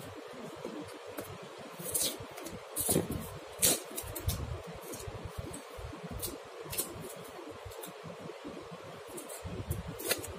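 Hands handling and opening a small cardboard phone box: a scatter of short, sharp scrapes and taps from the packaging over a steady background hiss.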